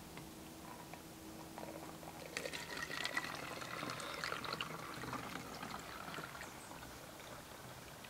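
White vinegar pouring from a plastic jug through a plastic funnel into a plastic soda bottle: a faint trickling that starts about two seconds in, is strongest in the middle and tapers off near the end.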